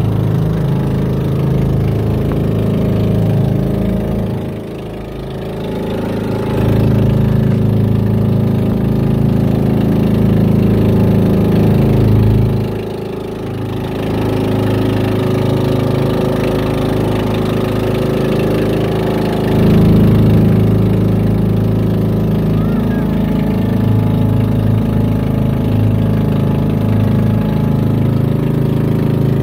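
Outrigger boat's engine running steadily under way, dropping in loudness briefly twice.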